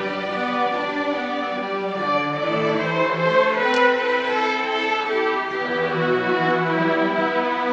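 A youth string orchestra playing: violins carry the line over cellos and double bass, in held bowed notes that change every half second or so.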